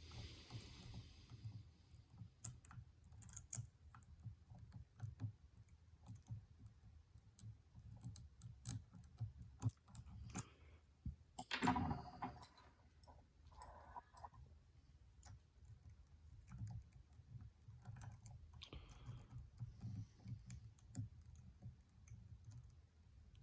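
Faint, scattered clicks and scrapes of lock picks working the pins of a Stanley padlock under tension, with one louder brief rattle about halfway through.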